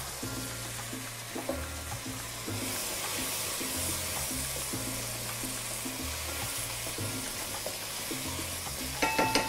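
Background music with a steady bass line, over the sizzle of sausage, guanciale and onion frying in a pan as it is stirred.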